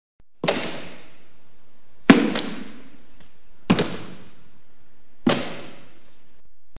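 Four loud bangs about a second and a half apart, each trailing off with a ringing echo; the second is a quick double hit.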